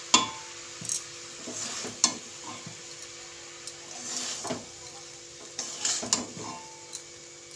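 Steel spatula scraping and tapping against a steel wok as cooked rice and vegetables are gently tossed, in intermittent strokes a second or so apart, over a faint sizzle of frying.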